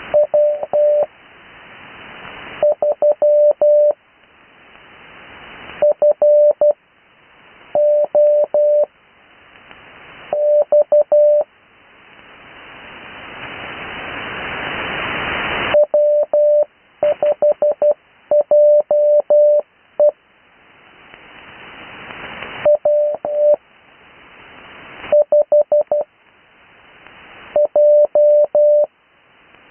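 Morse code (CW) sent as a steady tone of about 600 Hz, heard through a shortwave receiver: each character a quick cluster of dots and dashes, with gaps of a second or two between characters (Farnsworth spacing). Receiver hiss swells up in each gap and drops away when the tone keys again.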